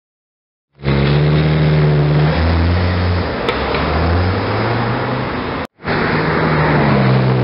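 After a second of silence, a Porsche 911 GT3 RS flat-six is heard accelerating away, its pitch stepping up twice. An abrupt cut just before 6 s leads to a red Ferrari 458's V8 driving past, its pitch easing down, then holding steady.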